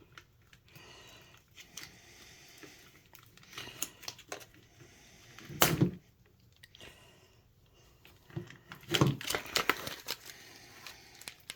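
Plastic packaging crinkling and rustling as a spool of wood PLA filament is handled and unwrapped, in scattered crackles with a denser run near the end. About halfway through there is a single louder knock.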